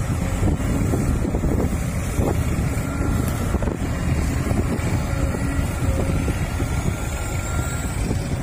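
Sumitomo hydraulic excavator's diesel engine running steadily as it digs and swings, with wind on the microphone.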